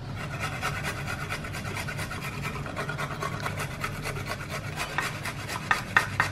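Garlic cloves being grated by hand on a flat stainless-steel grater: a fast, even rasping scrape that keeps going, with a few sharper strokes near the end.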